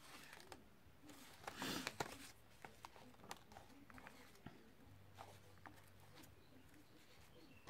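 Faint rustling and light clicks of thin paper die-cuts being handled and laid on a table, with one louder rustle a little under two seconds in.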